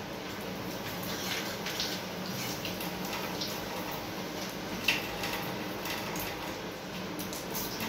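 Kitchen tap running into a stainless-steel sink while hands rinse and rub a small item under the stream. One brief sharp sound about five seconds in.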